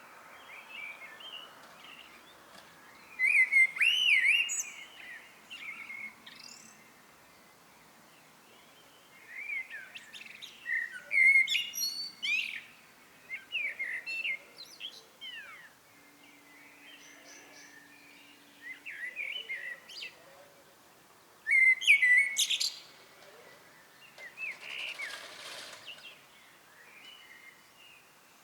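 Common blackbird singing: separate phrases of low, fluty warbling, each running into high twittering, repeated every few seconds with short pauses between.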